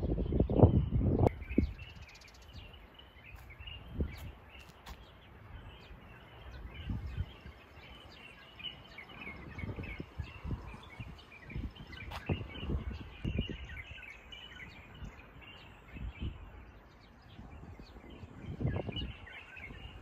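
Many small birds chirping and twittering without a break. Gusts of wind buffet the microphone as a low rumble, loudest in the first second and a half and again near the end.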